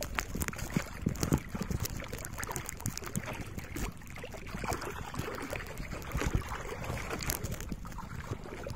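Water sloshing and splashing against a small boat's hull, with wind on the microphone making irregular crackles.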